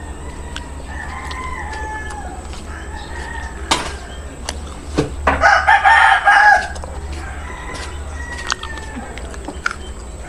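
A rooster crowing about five seconds in, the loudest sound, lasting about a second and a half, with fainter crows from other roosters further off before and after it. A single sharp click a little before the loud crow.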